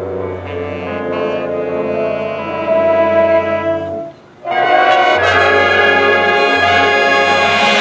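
Marching band brass section playing long sustained chords; the sound breaks off briefly about four seconds in, then comes back with a louder, fuller chord.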